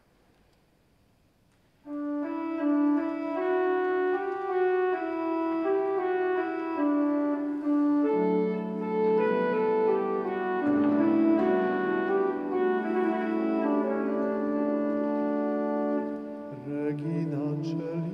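Near silence, then about two seconds in a church organ starts playing slow, sustained chords that change in steps. Near the end a singing voice comes in over it.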